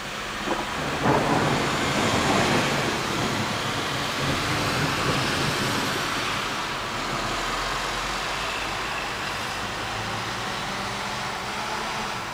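A thunderclap cracks about a second in and rolls into a rumble that slowly fades over several seconds, over a steady hiss of rain.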